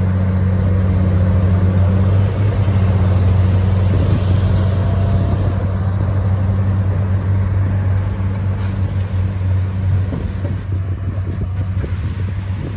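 Heavy diesel engine of earthmoving equipment running steadily with a deep, even hum. A short hiss cuts in briefly about two-thirds of the way through.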